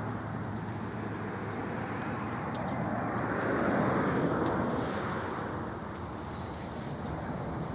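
UTOPUS anchor-traction robot's drive machinery running steadily as it climbs a loose-soil slope, growing louder for a couple of seconds around the middle.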